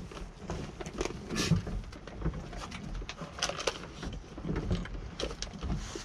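Goats feeding at a wire-panel hay feeder: irregular rustling of hay with scattered light clicks and knocks.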